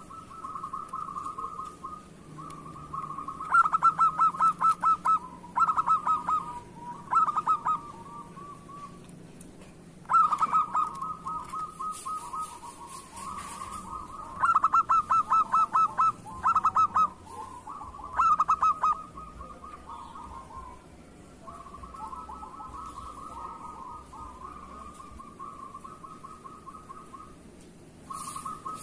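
Zebra dove (perkutut) cooing: phrases of fast, stuttering coos at a fairly even pitch, the loudest phrases coming several times, with softer cooing in between.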